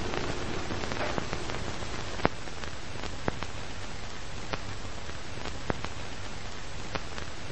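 Steady hiss with scattered crackles and pops about once a second: old-film or record surface noise used as a vintage sound effect.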